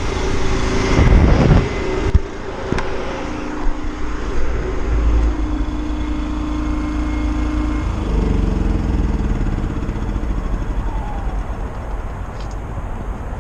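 A road vehicle's engine running steadily with a low rumble, louder for a moment about a second in, with a falling tone near the end.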